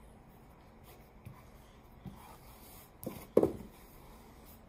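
Wooden rolling pin, with a sheet of pasta dough wrapped around it, rolling and rubbing over a floured pastry mat: soft, faint scraping with a few light taps and one short thump about three and a half seconds in.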